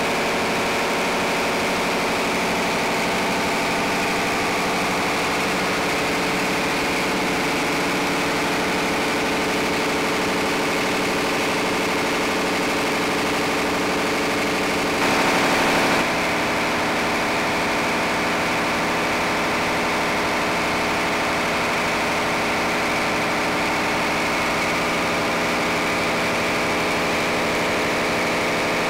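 Paxman 12YJ V12 diesel engine running steadily on test, with a brief louder stretch about halfway through.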